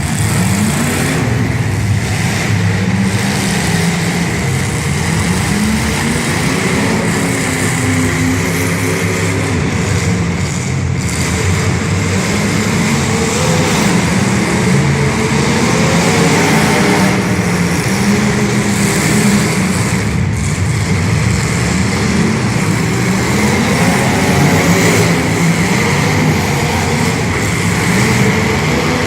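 Demolition derby cars' engines running and revving, their pitch rising and falling over and over.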